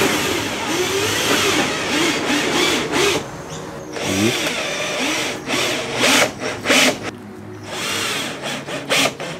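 Cordless drill driving fasteners into the car's underbody. Its motor spins up and slows down again in short repeated runs as the trigger is pulsed, with sharp knocks in between.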